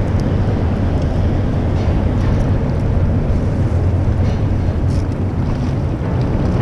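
Steady low rumble of wind buffeting the camera's microphone.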